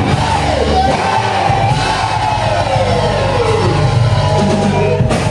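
Loud church worship music with steady bass notes and voices singing, several of them gliding down in pitch over it.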